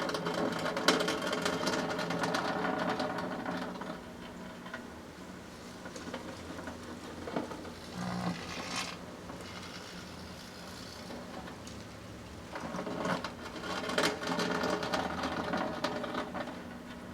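Microwave oven running with a steady hum while the solar lamp inside burns, crackling and popping rapidly in two spells, one at the start and a longer one starting a little past the middle.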